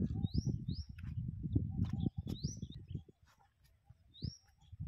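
A bird calling several times with short rising chirps, over low rumbling noise that drops away about two seconds in.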